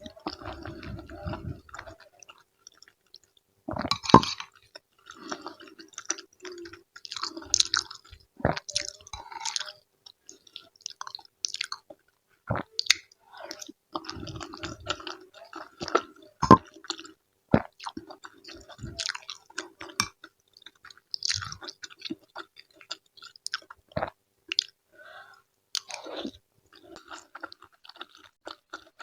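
Close-miked chewing of a meal of sayur asem and fried tempeh, in irregular mouthfuls, with sharp clicks or knocks every few seconds.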